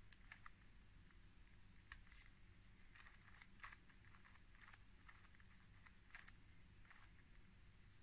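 Plastic Rubik's Cube being turned by hand, its layers clicking sharply as they snap round, in quick irregular bursts of one to three clicks, about ten in all.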